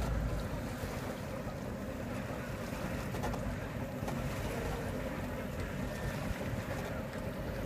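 Paddle-wheel boat running on the water, its paddle wheel turning and churning steadily.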